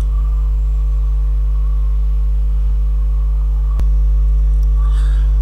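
Steady low electrical mains hum and buzz in the recording, with one sharp click a little under four seconds in, after which the hum is slightly louder.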